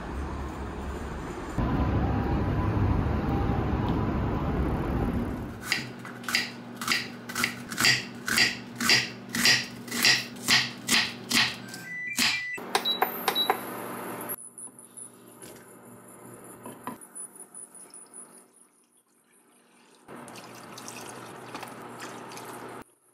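A kitchen knife slicing an onion on a wooden cutting board: a run of sharp chops about two a second, then a few quicker ones. Near the end, water pours from a measuring cup into a pan for about three seconds and stops. Before the chopping, a few seconds of steady low noise.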